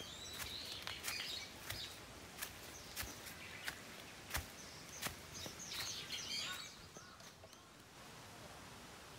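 Footsteps crunching on dry fallen bamboo leaves at an even walking pace, about one and a half steps a second, stopping about six and a half seconds in. Birds chirp briefly near the start and again just before the steps stop.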